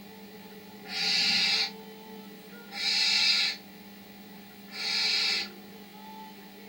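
Barn owl owlets giving their snoring food-begging calls: three urgent hissing snores, each under a second long, about two seconds apart.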